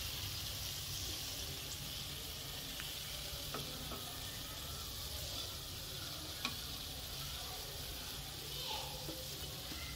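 Pakoras sizzling steadily in hot frying oil, with a few faint clicks of a perforated metal skimmer against the pan as they are lifted out.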